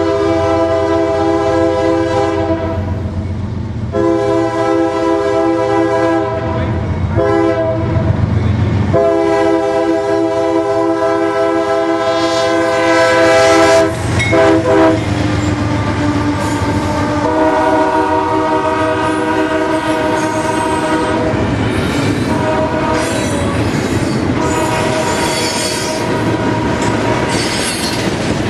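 A CSX freight locomotive's air horn sounds long, long, short, long, the grade-crossing signal. The chord then drops in pitch as the locomotive passes and keeps sounding in held notes. Near the end the container cars rattle and clack over the rails, with some wheel squeal.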